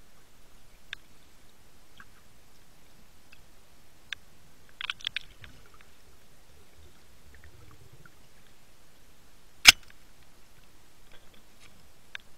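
Underwater sound picked up by a camera in shallow water: a faint steady hiss with scattered short clicks, a quick cluster of clicks about five seconds in, and one loud sharp click a couple of seconds before the end.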